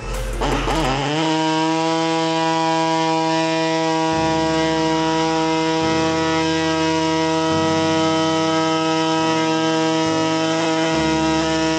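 Pneumatic die grinder spinning up about a second in, then running at a steady high-pitched whine as it cuts along a marked line in the fiberglass (FRP) body shell of a homemade mini jet ski.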